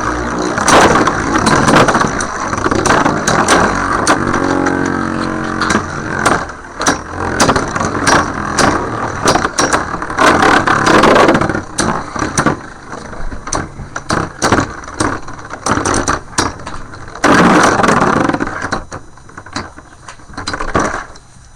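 Beyblade spinning tops whirring in a plastic stadium and colliding again and again, a steady rattling whirr broken by many sharp clacks as they hit; it dies down near the end.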